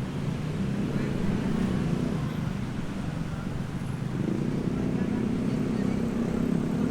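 An engine running steadily, its pitch shifting slightly higher about four seconds in.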